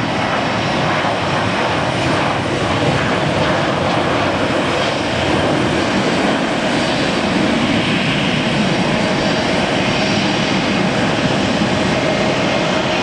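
Boeing 737-700 jet airliner taking off on its two CFM56-7B turbofan engines at takeoff thrust: loud, steady jet noise through the takeoff roll, lift-off and initial climb.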